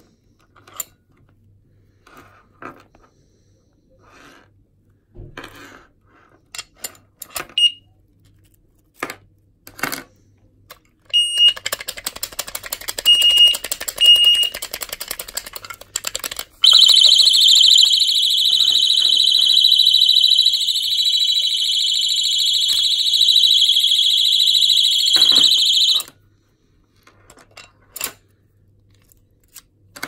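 Oxford Boss OF3 alarm disc lock being handled, with scattered plastic and metal clicks, then jostled with rapid rattling and a few short high beeps. Its alarm then sounds, a loud, steady, high-pitched siren for about nine seconds, and cuts off suddenly, followed by a few more handling clicks.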